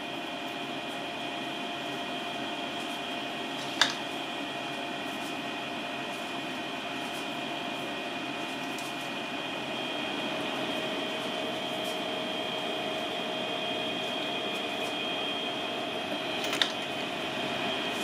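Steady mechanical hum with a few constant whining tones, like a ventilation fan or air conditioner running, broken by two short clicks, about four seconds in and near the end.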